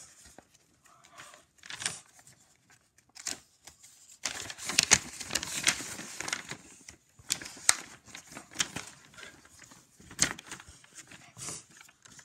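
Sheets of paper in a hand-made book rustling and flapping as the pages are turned quickly, with a few sharp papery snaps; the rustling is busiest and loudest around the middle.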